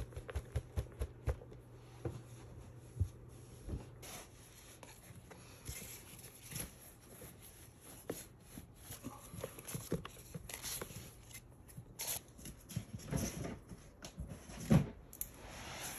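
Hands handling a clear plastic enclosure, cork bark and soil: irregular taps, knocks and rustling of plastic and substrate, with a couple of sharper knocks in the latter half.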